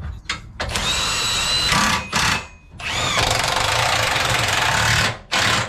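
Cordless impact wrench running in the bolts that mount a front traction bar to the car's cross-member points. It runs in several bursts of a few seconds each, with a steady motor whine.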